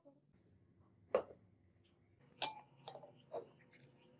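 Laboratory glassware and a plastic funnel being handled on a bench: four sharp clinks and knocks over a couple of seconds.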